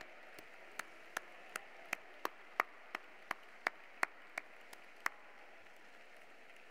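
One person's hand claps picked up close by a podium microphone: a steady run of sharp single claps, about three a second, that stops about five seconds in, over faint hall hiss.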